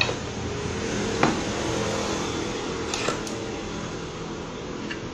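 A few sharp metal clicks from a crankshaft bearing tool being repositioned on a motorcycle crankshaft: one about a second in and two close together around three seconds in. A steady machine hum runs underneath.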